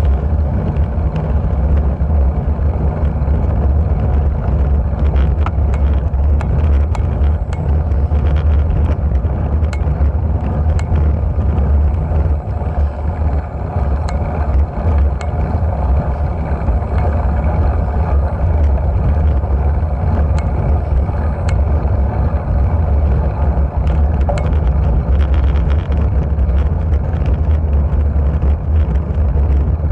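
Steady low wind rumble buffeting the microphone of a bicycle-mounted camera as the bike climbs, with tyre noise on the asphalt and scattered small ticks and rattles.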